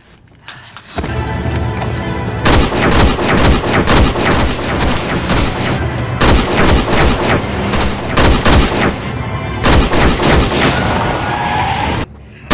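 A long, rapid barrage of gunfire over loud music, starting about a second in and cutting off abruptly just before the end.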